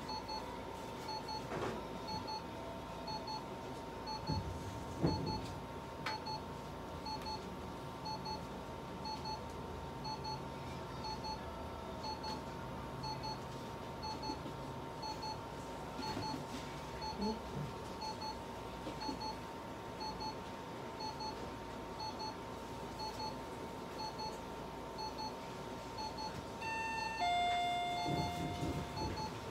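Therapy laser unit beeping at an even, quick rate over a faint steady tone while its handpiece emits. A soft knock comes about five seconds in, and near the end a short run of tones at different pitches sounds.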